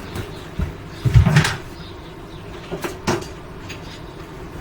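A few separate light knocks and clicks of hands and tools working at a wall light switch, the strongest about a second in.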